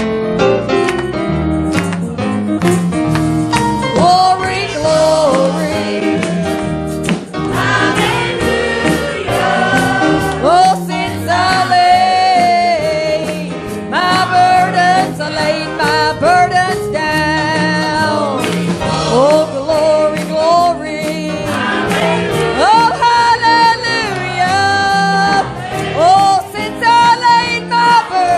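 Live gospel worship song in a church service: singers, with voices joining in, over a keyboard-led band with bass and a steady beat.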